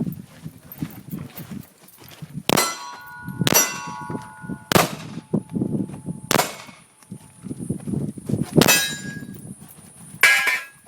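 Six pistol shots from a Smith & Wesson M&P Pro, spaced one to two seconds apart, several followed by the ringing clang of hit steel targets.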